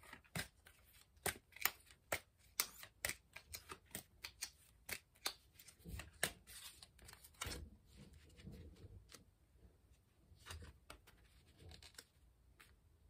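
A deck of tarot cards being shuffled by hand: a quick series of sharp card snaps and clicks, about two or three a second, easing off about seven or eight seconds in to softer handling as a card is drawn and laid down.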